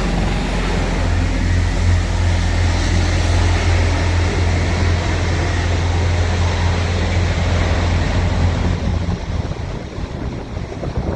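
Aircraft engines running with a steady low drone and heavy rushing noise. The drone weakens near the end, and there is wind on the microphone.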